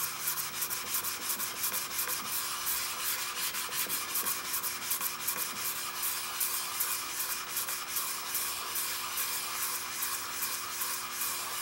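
Cast-iron sole of an old Craftsman block plane scraping back and forth on abrasive paper over a flat reference plate, several quick strokes a second: the sole is being lapped flat and its scratch marks dressed out.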